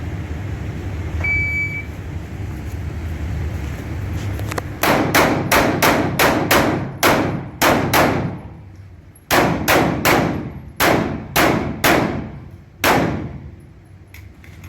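A short high beep, then a Glock 34 Gen 4 9mm pistol firing in quick strings: about nine shots in rapid succession, a pause of about a second and a half, then about eight more that slow toward the end, each shot ringing briefly.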